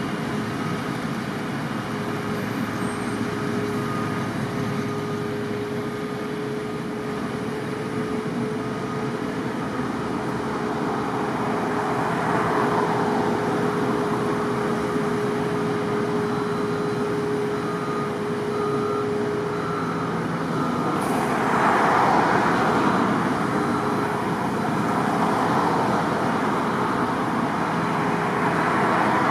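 Snowblower loaders clearing a street: heavy diesel engines running steadily under a constant whine, with the noise swelling louder a few times, most strongly a little past the middle.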